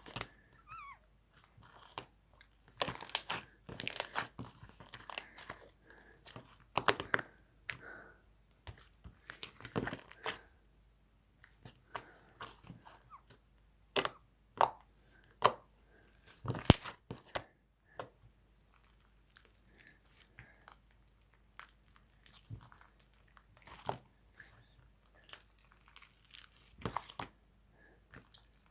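Slime being handled by hand, squeezed, pressed and stretched, giving irregular crackly clicks and pops in clusters with short pauses between them.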